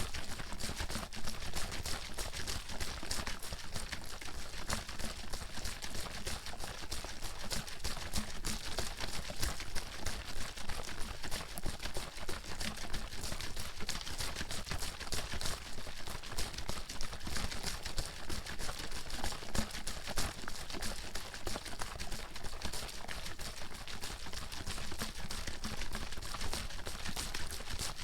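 Water sloshing inside a bottle being shaken hard and fast: a steady, unbroken run of quick splashes and knocks.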